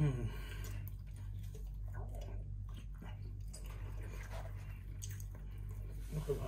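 Close-up eating sounds: chewing and wet, sticky squelches as saucy peri-peri chicken is pulled apart by hand, with scattered small clicks and smacks. A falling "mmm" of enjoyment opens it and another comes near the end.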